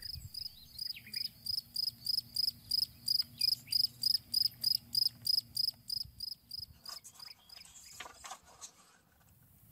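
Cricket chirping in a steady, even rhythm of about four high chirps a second, fading out about two seconds before the end.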